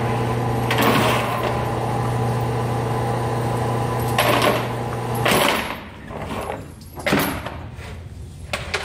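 Electric motor of an indoor range's overhead target carrier humming steadily as it runs the target back along its rail, stopping about five seconds in. Several sharp, echoing bangs come over it, about four in all.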